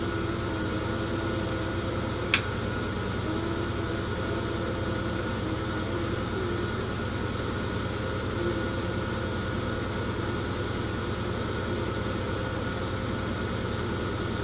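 Steady mechanical hum and buzz of the shaking device vibrating a plastic tub of sand to simulate an earthquake, with a single sharp click a little over two seconds in.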